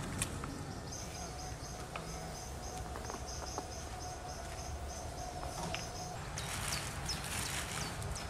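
Outdoor ambience: a rapid series of short high chirps repeating a few times a second over a low background rumble, with a faint steady tone in the middle. Near the end comes a short burst of rustling and a few quick falling chirps.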